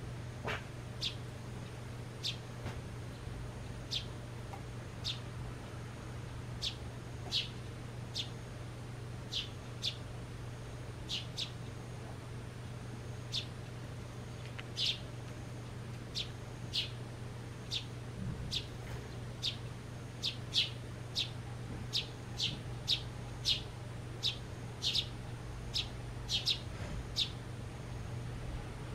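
Eurasian tree sparrow chirping: short, high single chirps about once a second, coming quicker and louder in the second half, over a low steady hum.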